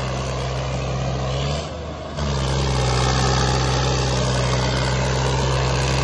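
John Deere 5210 tractors' diesel engines running hard under full load in a tractor tug-of-war, their wheels spinning in the dirt. The steady engine note dips briefly just before two seconds in, then comes back louder.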